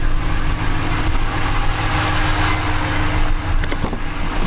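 Ram 1500 pickup's Hemi V8 engine idling steadily, with a couple of light knocks about three and a half seconds in.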